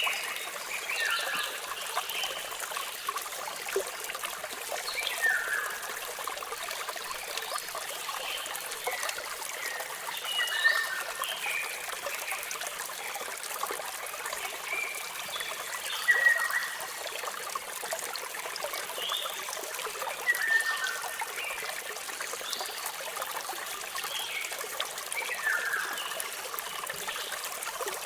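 Steady rush of running water from a waterfall, with birds chirping over it: short, falling chirps in small clusters that come back every five seconds or so.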